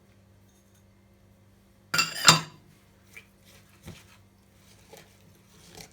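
Kitchenware clinking: a utensil or dish strikes with a short ringing clink about two seconds in, followed by a few softer knocks and handling sounds.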